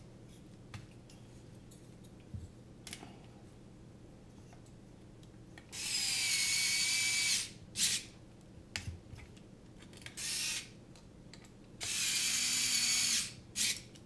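Small cordless electric screwdriver driving screws into a carbon-fibre drone frame: three short runs of a high motor whine, the first and last about a second and a half each, the middle one brief. Small clicks of handling between the runs.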